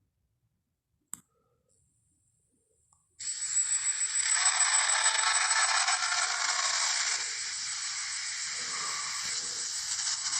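A Tyrannosaurus rex sound effect: a harsh, noisy, hissing sound that starts suddenly about three seconds in and holds on steadily, after a single click about a second in.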